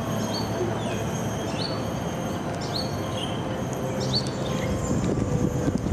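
Chairlift running along its cable with a steady rushing noise that grows rougher near the end, while a bird in the trees repeats a short high chirp about once or twice a second.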